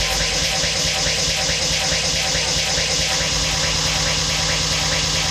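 Dance-routine music track playing: a fast, buzzing beat that repeats several times a second at a steady level.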